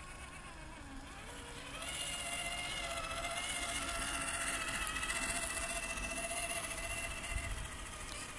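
Traxxas TRX-4 RC crawler's electric motor and geared drivetrain whining as it drives at crawling speed, growing louder about two seconds in.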